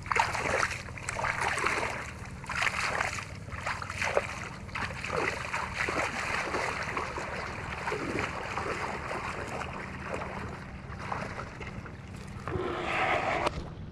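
Water splashing and sloshing in irregular surges, over a low steady hum, with a louder surge near the end.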